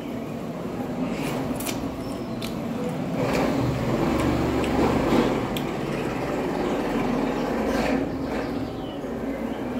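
Close-up mouth sounds of gnawing and sucking at a stewed goat bone, with a few small clicks. A low rumble swells for several seconds in the middle and is the loudest part.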